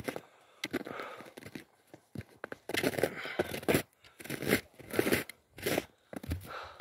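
Footsteps crunching in snow at a walking pace, one crunch every half second or so.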